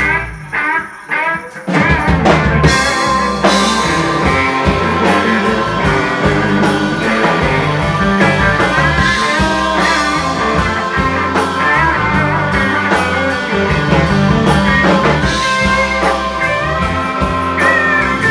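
Rock band with electric guitar and drum kit playing, recorded live in the room. A few separate notes open it, then the full band comes in about two seconds in and plays on steadily.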